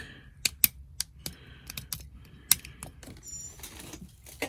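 A string of irregular sharp clicks and taps, about a dozen at uneven spacing, from small hard objects being handled on a workbench, with a brief high squeak about three seconds in.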